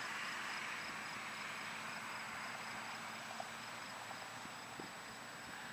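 Insects chirping: an evenly repeated high chirp, about three a second, over a steady hiss.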